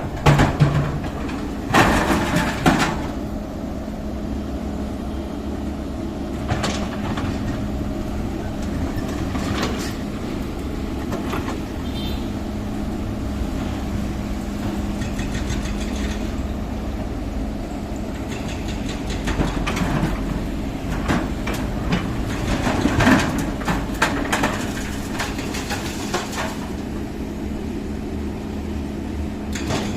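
Heavy diesel engine of construction machinery running steadily with a low drone, with scattered knocks and clanks a few times, loudest about two seconds in and again about two-thirds of the way through.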